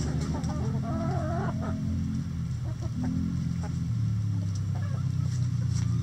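Backyard chickens clucking, with one drawn-out wavering call in about the first two seconds and short clucks after it, over a steady low hum.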